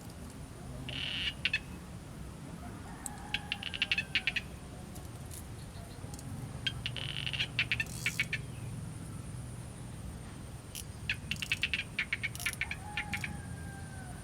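An animal calling four times at intervals of about three seconds, each call a quick run of clicks with a falling tone beneath it.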